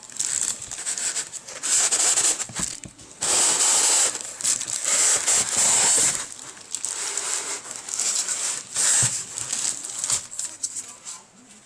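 Clear plastic wrapping being handled and pulled inside a packing box, crinkling and rustling in irregular bursts that die down near the end.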